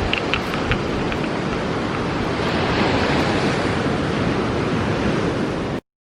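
Ocean surf washing onto a sandy beach: a steady rush of waves, with a few faint clicks in the first second. The sound cuts off abruptly near the end.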